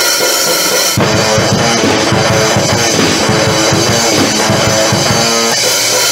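Heavy metal band recording: electric guitar and drum kit playing together, with fast drumming coming in about a second in.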